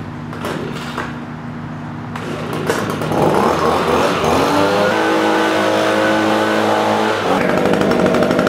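Handheld leaf blower running, speeding up to a higher pitch about three seconds in and held there at high speed.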